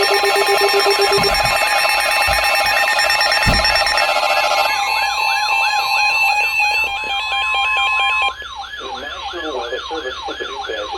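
Several electronic weather-alert alarms sounding at once for an incoming severe thunderstorm warning: steady beeps, repeating siren-like rising-and-falling sweeps and a high-low two-tone pattern layered together. About eight seconds in several of them cut off and the rest carry on more quietly.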